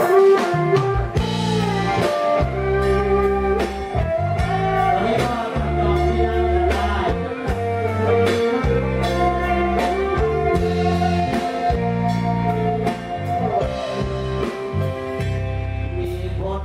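Live band playing a song: a lead guitar melody over bass guitar and drum kit, with steady bass notes and regular drum hits.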